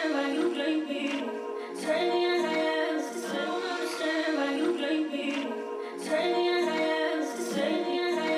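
Intro music with a singing voice over held chords, looping a short phrase about every two seconds.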